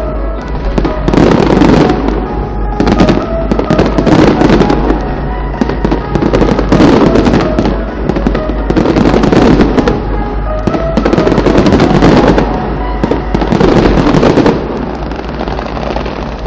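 Fireworks going off in a dense, continuous barrage: many overlapping bangs and crackles with no pause, swelling and easing every second or two.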